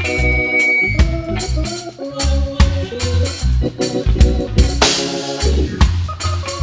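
Live reggae band playing an instrumental passage without vocals, the drum kit hitting a steady beat.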